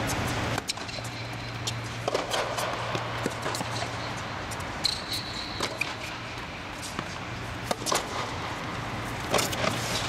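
Tennis serve and rally: a sharp racket strike on the ball about half a second in, then irregular knocks of the ball being hit and bouncing on the hard court, over a steady low hum. A brief high squeak comes about five seconds in.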